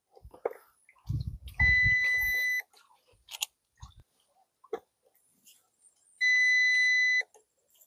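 Two long, steady beeps from the UPS in the backpack, each about a second long, the first about a second and a half in and the second about six seconds in: the alarm a UPS sounds while running on battery. A low rumble and a few faint knocks come around the first beep.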